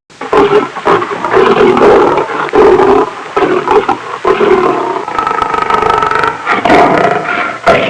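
Lion roaring and growling, one call after another with only short pauses; about five seconds in, the calls turn higher-pitched.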